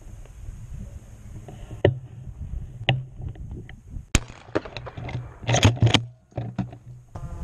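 Irregular knocks, clacks and rubbing from handling of a camera mounted on a shotgun, several sharp single knocks and then a quick cluster of them a little after halfway, over a low rumble.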